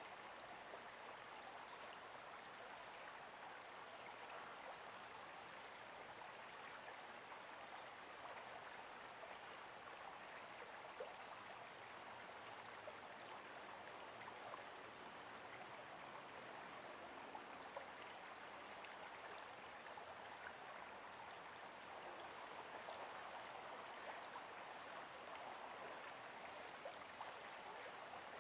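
A stream running with a steady, faint babble of flowing water.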